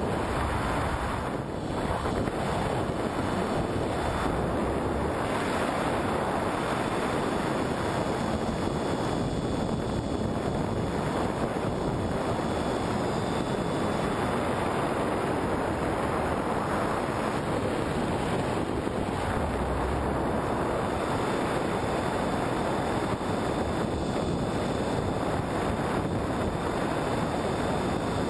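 Steady rushing wind noise of air streaming over the onboard camera of a flying FPV Penguin model plane, with a faint steady high tone beneath it.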